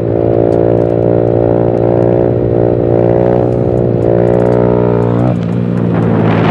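Honda Titan 150 motorcycle's single-cylinder engine held at steady revs while the bike rides a wheelie. About five seconds in, the revs drop abruptly as the throttle is closed and the front wheel comes back down.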